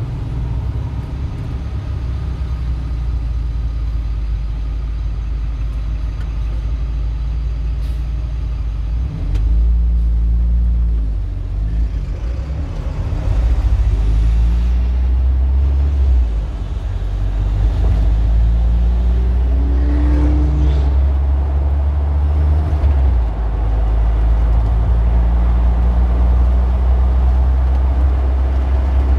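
A motor vehicle's engine running with a low, steady rumble. It grows louder about nine seconds in, dips briefly around sixteen seconds, then comes back up.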